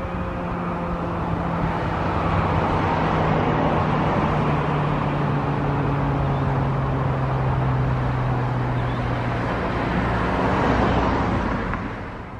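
Federal Signal 2001-130 siren winding down at the end of its test: its tone slowly falls in pitch under a steady rushing noise, and the sound fades away near the end.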